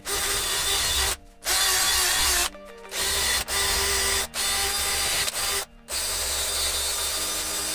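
Cordless drill spinning a homemade bit wrapped in a copper-pipe cleaning pad against the combustion chamber of a pit bike cylinder head, cleaning off deposits. A steady motor hum over a scrubbing hiss, in several runs cut by short pauses where the trigger is released.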